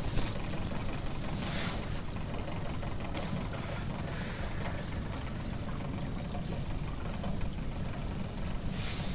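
Steady low wind rumble buffeting the microphone.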